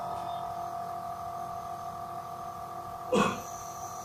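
Oil-free piston compressor of an electric nebulizer running steadily: a constant hum with several held tones. About three seconds in there is a brief, louder rush of noise.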